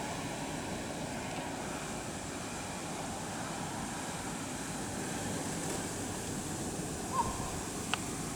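Steady noise of blizzard wind, with a brief high chirp and a single sharp click near the end.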